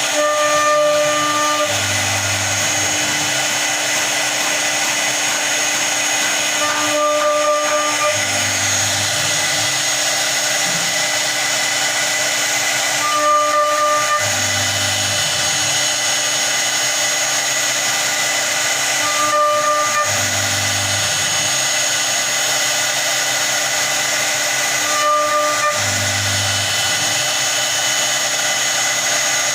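CNC router spindle running steadily while carving a wooden door design, a high whine over hiss. A short shift in tone with a low hum comes back about every six seconds.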